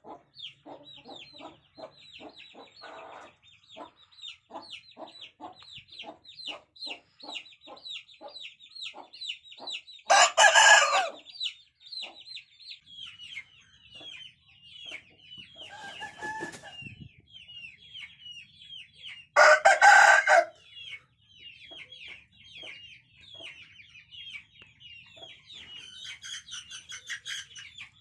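Roosters crowing: two loud crows about ten and twenty seconds in, and a weaker one between them. Between the crows, chickens cluck in a quick low series, over constant high falling chirps.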